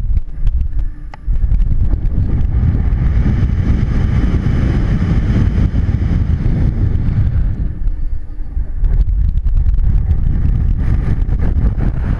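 Wind buffeting the microphone of a camera on a swinging pendulum ride: a dense rush, heaviest in the low end, with scattered small clicks. It drops briefly about a second in and eases again around eight seconds, as the swing changes speed.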